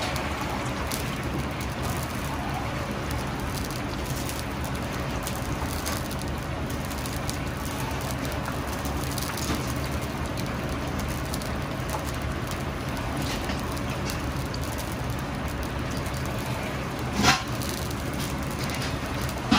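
Chicken pieces deep-frying in hot oil in a large iron wok, the oil bubbling and crackling steadily over a constant low rumble. A single sharp knock about seventeen seconds in.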